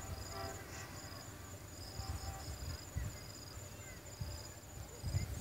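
Insects chirping in a steady high trill, one pitch continuous and a lower one coming and going, over a low uneven rumble. In the first second the faint tail of the diesel locomotive's horn toot fades out.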